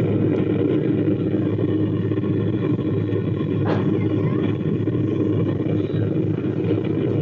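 Telecon home theatre's speaker playing its audio harshly distorted, the sound a dense low-end mush over a steady hum. The repairer traces the fault to a failed TDA2030 bass amplifier IC.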